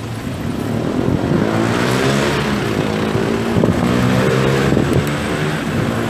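A nearby vehicle engine running in slow traffic, its pitch drifting up and down a little, over steady wind noise on the microphone.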